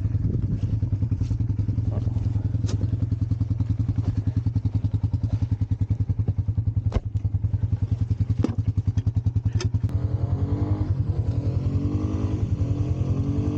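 Off-road utility vehicle engine running with a steady low throb, with a few sharp knocks. About ten seconds in, an engine note revs up and down over the steady throb.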